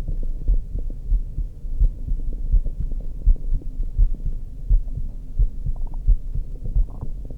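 A woman's heartbeat heard through a stethoscope: a steady, regular run of low, dull thumps over a constant low hum.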